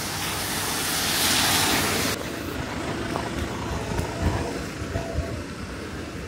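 Steady hiss of rain and of traffic on a wet road, swelling about a second and a half in and cutting off abruptly about two seconds in. After that the sound is quieter, with soft low thumps of footsteps on wet pavement.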